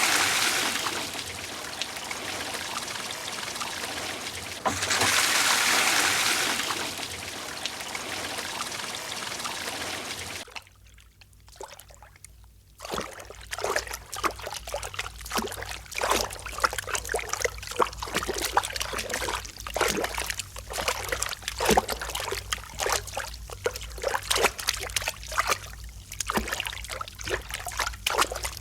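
Water sound effects: a steady rush of running water that swells twice, then after a short pause, irregular splashing and trickling drips.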